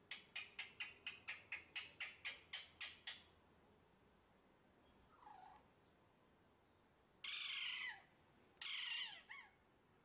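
Alexandrine parakeet calling: a quick run of about a dozen short chirps, some four a second, for the first three seconds, then two longer harsh screeches and a short chirp near the end.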